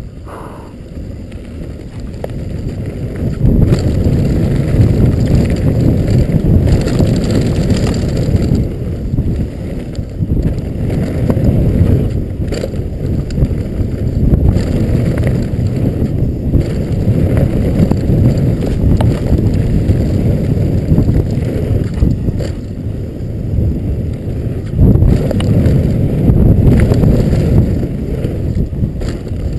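Specialized Stumpjumper FSR mountain bike running fast down a dry dirt trail: tyres rumbling over the washboard braking bumps, frame, chain and suspension rattling and knocking, and wind rushing on the camera microphone. Louder from about three and a half seconds in.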